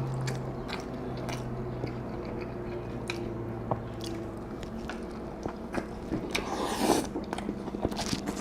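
Close-miked eating of a fast-food meal: biting and chewing with scattered crunchy clicks. A low hum fades out about halfway through, and there is a brief louder rustle about seven seconds in.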